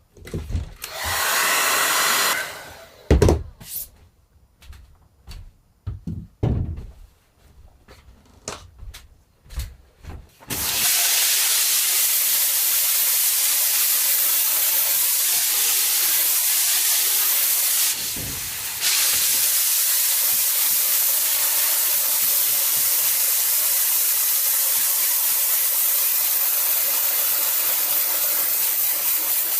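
Scattered knocks and clicks of handling, then a spray gun starts about ten seconds in: a loud, steady hiss that dips briefly once and then carries on, part of making a silkscreen plate.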